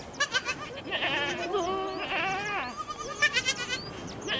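A flock of sheep and goats bleating, several animals calling one over another, some calls quavering and others drawn out.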